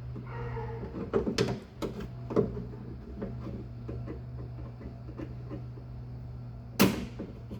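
Hand tools and the door handle's metal parts clicking and knocking inside the hollow steel door shell of a Holden HQ as the handle is worked free, with one sharp knock a little before the end. A steady low hum runs underneath.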